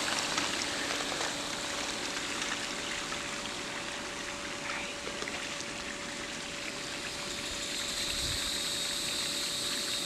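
Steady rush of water with the constant hum of an Intex sand-filter pump running, vacuuming the pool on waste so the water goes straight out of the pool.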